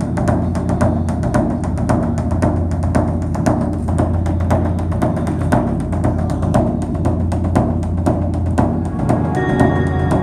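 Background music with a steady drum beat of about three strikes a second over a low sustained drone; held melodic tones come in near the end.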